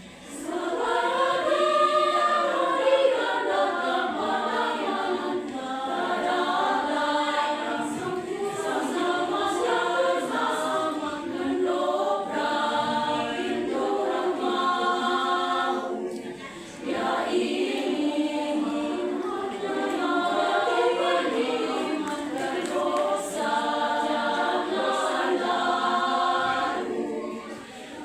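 Women's church choir singing a Christmas hymn in parts, in long sustained phrases, with short breaks between phrases about two-thirds of the way through and near the end.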